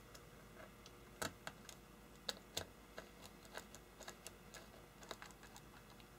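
Small precision screwdriver turning tiny screws into a Seagate hard drive's casing: irregular light metal clicks and ticks, a few sharper ones about a second and two and a half seconds in.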